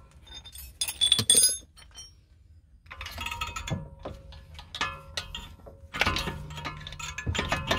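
A VW Golf Plus front brake caliper being wiggled and worked off its brake disc by hand, giving metallic clinks and knocks. A few sharp clinks come about a second in, then a run of smaller rattles and knocks.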